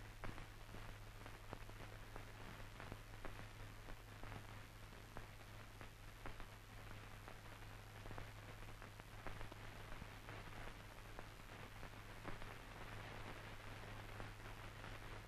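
Old film soundtrack noise: a steady low hum and hiss with scattered crackles and clicks.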